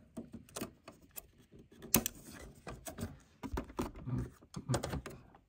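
Scattered small plastic clicks and taps as hands work the ink-tube holder and clips on an Epson EcoTank ET-2800's print-head carriage, with one sharper click about two seconds in.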